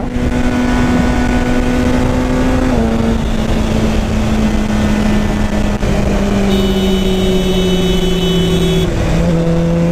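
Motorcycle engine running at a steady cruise under wind noise, its pitch sagging slowly as the bike eases off, with small drops about three seconds in and again near the end.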